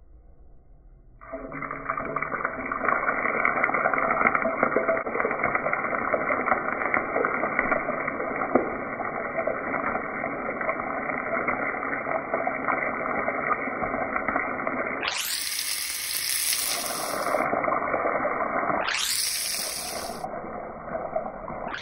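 Turkey sausage pieces sizzling steadily as they fry in oil in a skillet, starting about a second in. Near the end the sizzle turns brighter and hissier in three stretches of a couple of seconds each.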